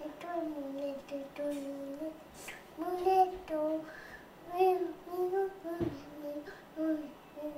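A small boy singing a children's song in a high voice, a string of held notes that rise and fall with short breaks between phrases.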